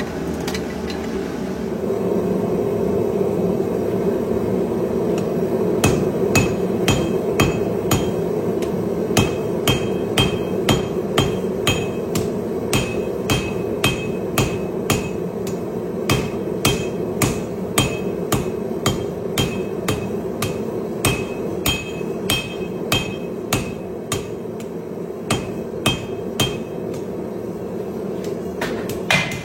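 Hand hammer striking a hot steel billet on an anvil, about two ringing blows a second starting some six seconds in, while the billet's edges are dressed to shape. A steady rushing noise runs underneath.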